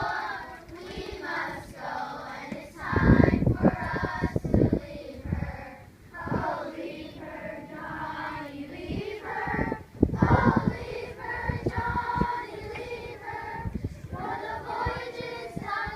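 A group of children singing or chanting together. Heavy low thumps break in about three seconds in and again about ten seconds in.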